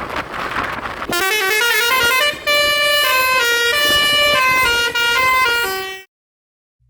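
Roof-mounted basuri telolet horns on a tour bus playing a quick, stepping multi-note melody. It starts about a second in over traffic noise and cuts off abruptly near the end.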